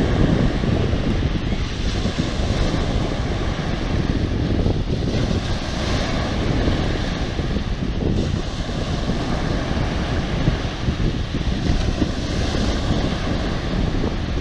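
Sea waves washing, with wind buffeting the microphone in a steady, heavy rumble.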